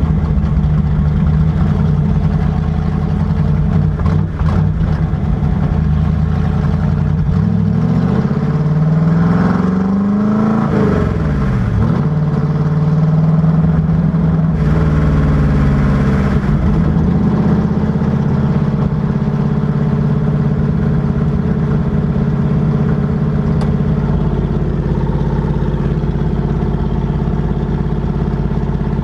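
Car engine of an FFR Cobra Daytona Coupé replica running at a steady pace, with the revs rising and falling back once about ten seconds in.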